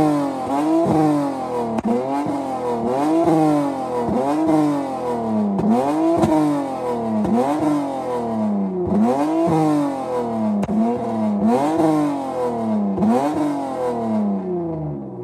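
Flame-tuned Dodge Charger V6 revved again and again while standing, about one rev a second, the exhaust note rising and falling each time, with sharp pops from the exhaust as the revs drop.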